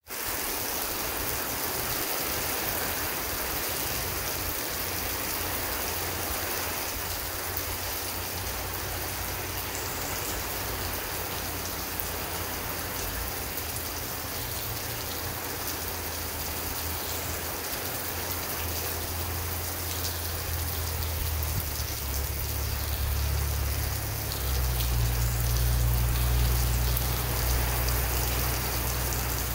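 Heavy rain falling steadily, a dense even hiss. A low rumble builds underneath in the last few seconds and becomes the loudest part.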